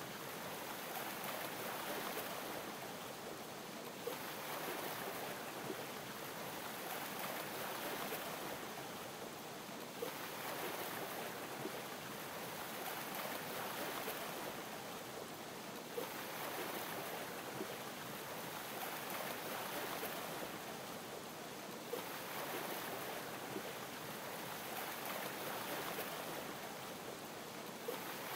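Champagne bubbles fizzing over gentle ocean waves lapping. It is a steady hiss of water that swells and eases about every six seconds, with a faint tick now and then.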